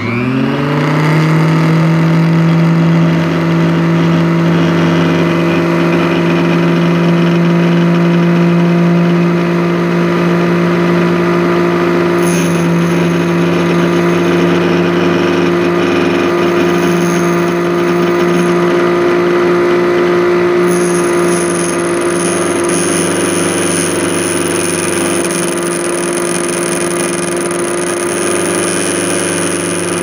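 Electric motor of a benchtop key-cutting machine switched on, whining up to speed in the first second, then running steadily with its belt-driven cutter spinning.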